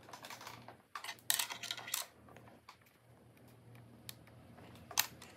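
Metal tweezers scraping and picking at the plastic clips of a MacBook Pro spacebar mechanism, with a burst of scratching and clicking about a second in and one sharp click near the end.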